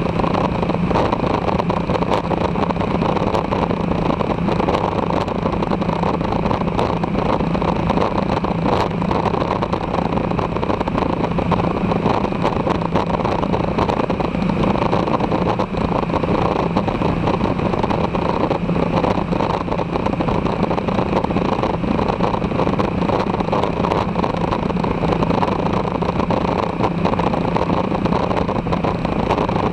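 Aeroprakt Foxbat light aircraft's engine and propeller running steadily in cruise flight, a constant drone with an even pitch.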